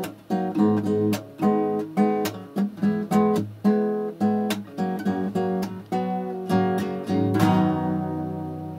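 Classical guitar played solo in the closing bars of a song: rhythmic strummed chords, then a final chord about seven and a half seconds in, left to ring and fade.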